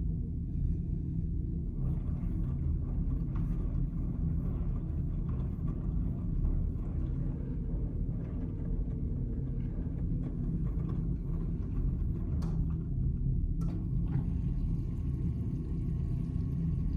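Miele W1 front-loading washing machine running a wash with a heavy load of towels: a steady low rumble of the drum turning. Two brief clicks come about twelve and thirteen and a half seconds in.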